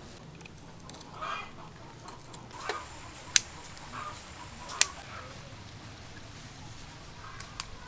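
A chicken clucking a few short times, the clearest call about a second in. Two sharp clicks, the loudest sounds, come about a second and a half apart near the middle.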